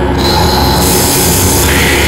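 Loud, dense horror sound-effect ambience: a steady low rumble with a harsh grinding, scraping layer over it. The hiss on top changes abruptly twice.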